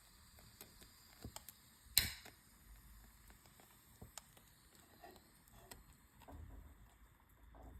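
Wood fire in a fireplace crackling: faint scattered pops and ticks over a low rumble, with one loud sharp crack about two seconds in.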